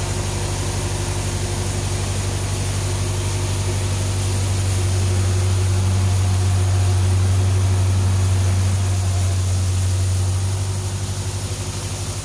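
Tractor engine running steadily, driving an 8-foot three-point rotary broom, with a steady hiss of the spinning bristles sweeping concrete.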